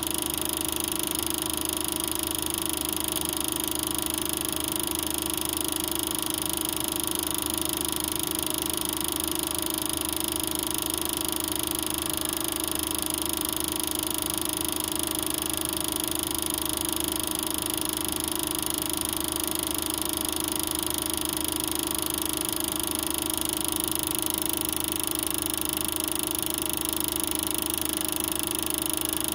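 Super 8 film projector running: a steady mechanical whirr with a constant hum that does not change.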